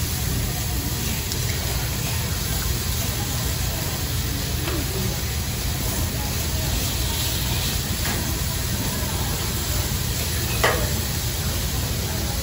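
Chicken and vegetables sizzling on a steel hibachi griddle under a steady rush of noise, with the chef's metal spatula and knife scraping and tapping on the steel now and then. A sharp metallic clink near the end is the loudest sound.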